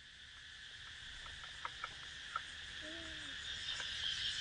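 Steady high chirring of insects that grows louder throughout, with a few light clicks in the middle and a short falling call about three seconds in.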